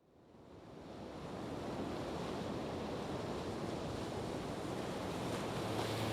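Steady rushing noise of an outdoor nature soundscape, fading in from silence over about the first second and a half; a low steady hum comes in near the end.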